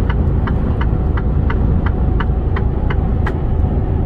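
Truck cab while driving: steady low drone of the engine and road, with an even ticking of about three ticks a second from the turn-signal indicator, which stops about three seconds in.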